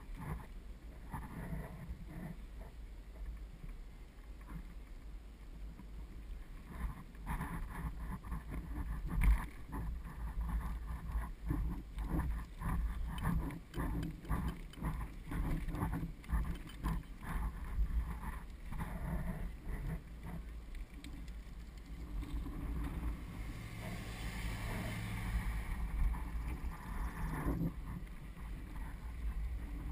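Child bike trailer rolling on asphalt behind a bicycle, heard from inside the trailer: a steady low rumble of the wheels and wind on the microphone, with frequent rattles and knocks from the trailer frame over bumps, the sharpest about nine seconds in. About 23 to 27 seconds in, a steadier hum with hiss joins in.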